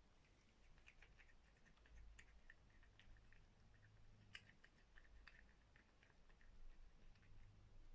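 Cat eating fish: faint, quick, irregular clicking smacks of chewing.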